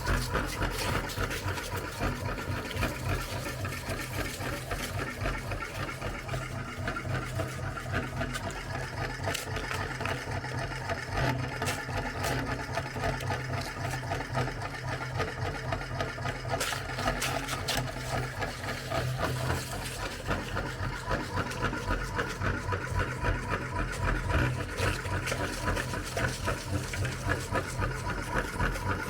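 Electric meat grinder running steadily under load, its motor humming with rapid crackling and clicking as it grinds ice cream cones.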